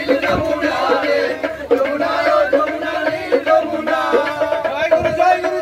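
A group of men singing a Bengali Baul folk song together, loud and in chorus, with sharp percussion beats keeping time.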